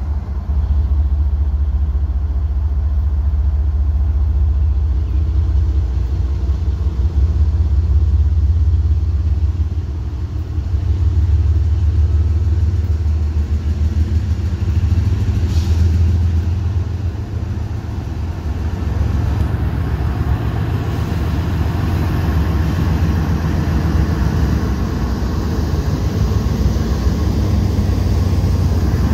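Norfolk Southern GE ES44AC diesel-electric locomotive, with a second unit behind, approaching and drawing up alongside, its V12 diesel engine running with a heavy, steady low drone.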